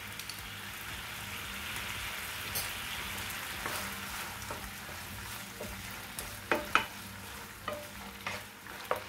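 Diced chicken and chopped garlic sizzling in a nonstick frying pan, a steady hiss, with a wooden spatula stirring and knocking against the pan now and then. The knocks come more often in the second half.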